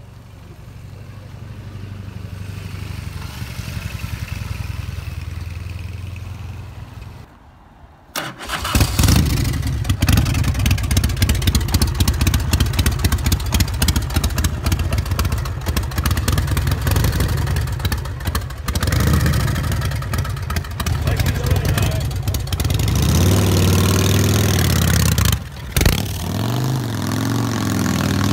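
A custom chopper motorcycle's engine starts about eight seconds in and runs loud and close, with a rapid pulsing beat. It is revved up and back down a couple of times near the end. Before it starts, a quieter engine rumble can be heard.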